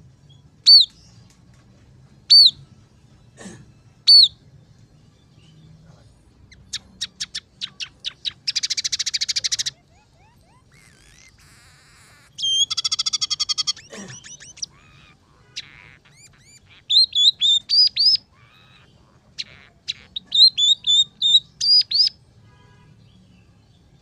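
Scaly-breasted munia singing: three loud single call notes about two seconds apart, then a fast clicking run that turns into a rattling buzz, a short buzzy trill, and two clusters of quick repeated notes near the end.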